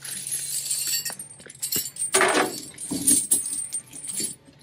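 Steel V-bar tire chains jangling and clinking as they are lifted off the pavement and thrown over a truck's rear tire, with the loudest rattle about two seconds in and a few sharper clanks after it.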